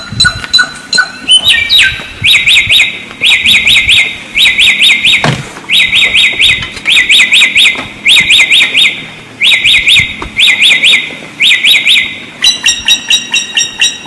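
Wild samyong songbird singing: a quick string of short, sharp repeated notes, then from about two seconds in a long series of short clusters of rapid falling notes, switching back to the short sharp notes near the end.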